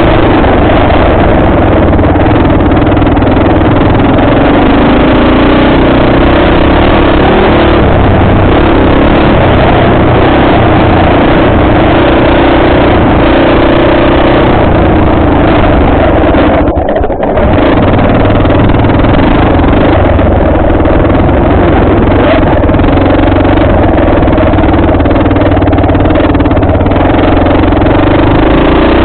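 Off-road vehicle engine running steadily under throttle on a dirt trail, its pitch holding fairly even with small rises and falls. The sound dips briefly a little past halfway through.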